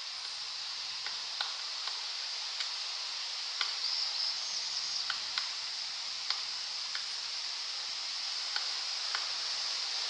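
Pileated woodpecker pecking and chipping at a rotting log: irregular sharp taps, about one a second, over a steady high hiss.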